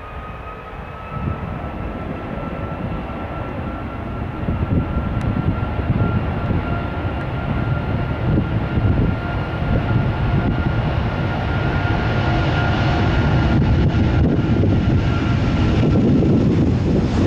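Airliner's jet engines: a steady whine that creeps slightly up in pitch over a rumble, growing steadily louder, with the whine fading out near the end.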